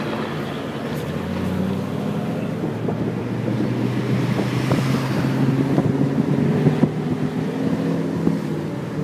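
Engine hum and road noise of a car driving along, heard from inside the car. The hum grows a little louder about halfway through.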